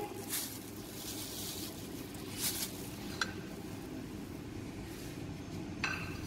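Steady low background hum in a small room, with a few faint brief rustles and one light click.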